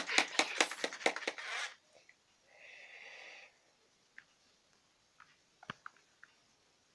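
A plastic bubble wand rattles and clicks quickly as it is worked in its tube of soap solution. Then a single breath of about a second is blown through the wand, making soap bubbles, and a few faint ticks follow.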